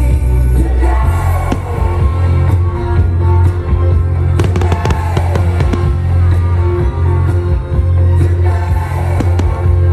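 Fireworks bursting and crackling over loud music with a heavy bass. A dense cluster of sharp cracks comes about four to five seconds in.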